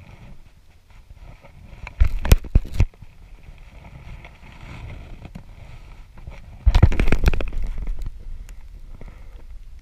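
Handling noise while a northern pike is held over the water and lowered back in off a wooden dock: a quick cluster of knocks about two seconds in, then a louder scuffling burst about seven seconds in as the angler leans down to the water. A low steady rumble of wind and water runs underneath.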